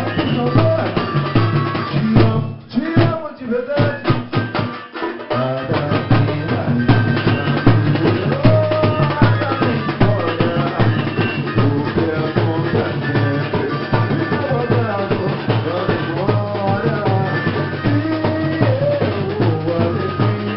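Batucada-style samba percussion group drumming, with a melody line over the drums. The low drums drop out about two seconds in and come back in about three seconds later.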